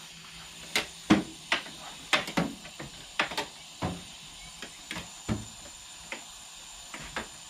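Metal hand tools clinking and clattering against each other as someone rummages through a tool drawer or box: a dozen or so sharp, irregular knocks and clinks.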